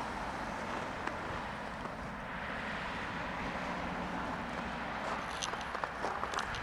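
Steady outdoor road-traffic noise, the hiss and rumble of cars passing on a nearby street, with a few light clicks near the end.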